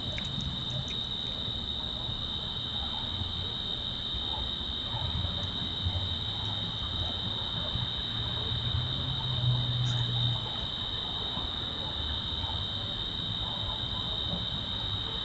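Steady high-pitched chorus of night insects, crickets trilling without a break, with a faint low rumble that swells in the middle.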